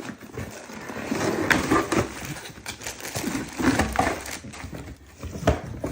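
Cardboard box being opened and its packaging handled: irregular rustling and scraping of cardboard and plastic, with a sharp knock near the end.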